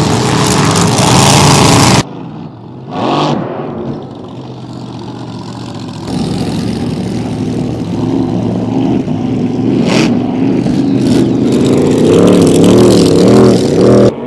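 Supercharged alcohol-burning engine of a flatbottom K boat racing at speed. A loud stretch cuts off abruptly about two seconds in, then the engine note rises and builds, loudest near the end.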